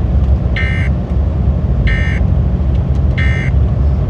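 Emergency Alert System end-of-message tones: three short, identical digital data bursts about a second apart, marking the close of the flood warning broadcast. A steady low rumble runs underneath.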